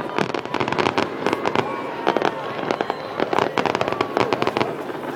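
Fireworks display: rapid, dense crackling and popping with bangs, and a few short whistles from shells going up.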